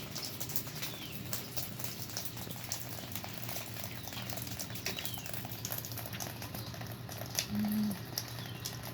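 Freezing rain pattering and dripping onto iced-over surfaces: a dense, steady crackle of small drops.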